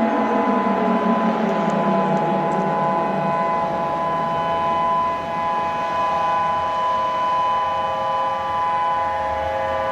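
Hawaii civil defense outdoor warning siren sounding a steady alert tone. A lower tone slides down and fades over the first few seconds.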